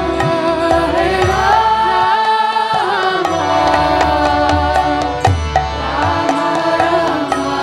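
Kirtan music: a held, gliding melody over deep hand-drum strokes and sharp small-cymbal clicks.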